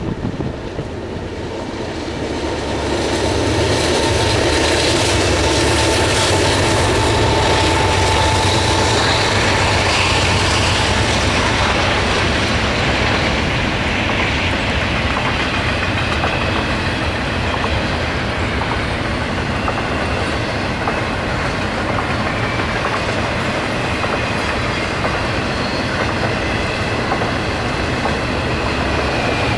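Norfolk Southern double-stack intermodal freight train passing, with the steady noise of its wheels on the rails. It grows louder about three seconds in, and a thin whine is heard from about five to nine seconds in.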